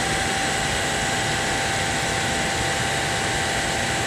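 Kranzle K1622 TS electric pressure washer running, its high-pressure water jet giving a loud, steady hiss with a faint whine under it. The water spray is louder than the quiet motor and pump.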